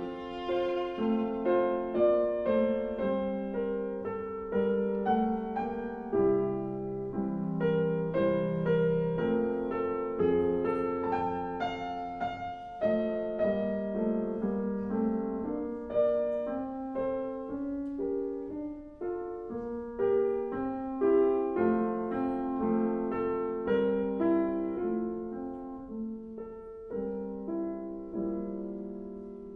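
Acoustic piano playing a passage of chords and melody, each note struck and then dying away, with the loudness swelling and falling by phrase and tapering near the end.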